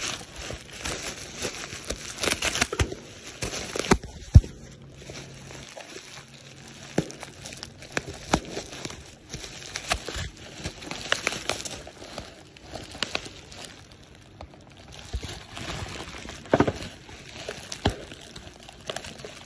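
Plastic packaging crinkling and rustling as it is handled, with scattered knocks and clicks and one sharp knock about four seconds in.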